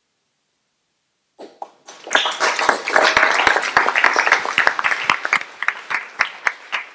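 Audience applauding, starting about a second and a half in, loud and dense, then thinning to scattered single claps near the end.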